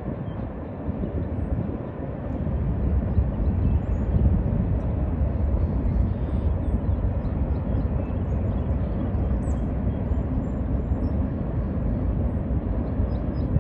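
Steady low rumble of a freight train's covered hopper cars rolling over a bridge.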